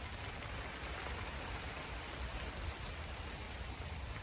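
Steady rain falling: an even hiss with faint scattered drop taps over a low rumble.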